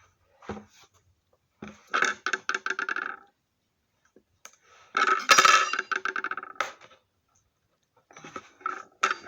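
Adhesive-sealed mailer being pulled open, the glued seal tearing and crackling in three bursts, about two, five and eight seconds in, with a couple of small handling clicks before them.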